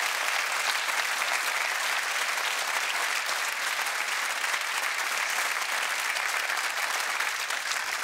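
Studio audience applauding steadily, easing off slightly near the end.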